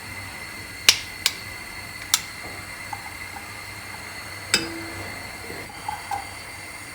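Four sharp clicks and a few softer taps, spread unevenly, over a steady faint hiss.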